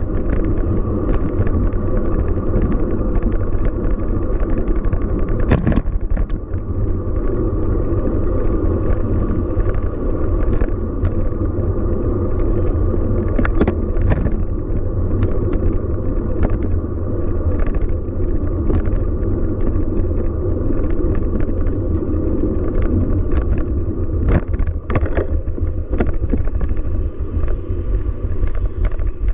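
Steady low rumble of riding a Scott Speedster CX 20 road bike, with many scattered sharp clicks and rattles.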